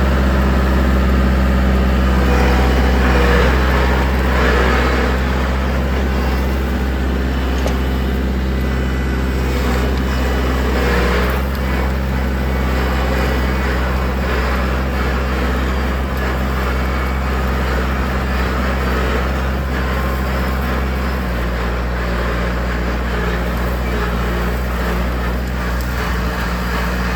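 Tractor engine running steadily under load while pulling a no-till drill, with an even low drone. The engine note shifts slightly about three quarters of the way through.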